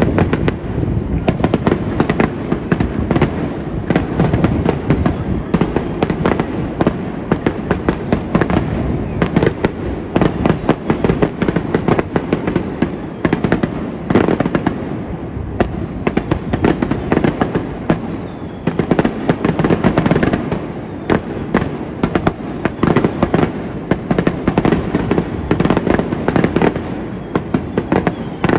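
Aerial fireworks display: a dense, continuous barrage of shell bursts and crackling reports, many per second without a pause.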